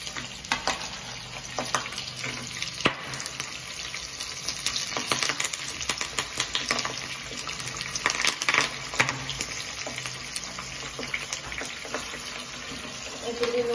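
Hot oil sizzling and crackling in a small kadai as a tempering of mustard seeds, cumin, dals, green chillies, dried red chillies and curry leaves fries, with frequent sharp pops and spits throughout. The steady spluttering shows the oil is hot enough for the tadka.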